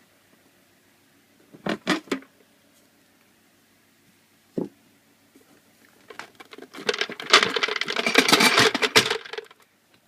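Vintage Eagle gumball vending machine being unlocked and opened: a few sharp clicks and knocks, then about three seconds of dense metallic rattling and clattering from the machine's parts.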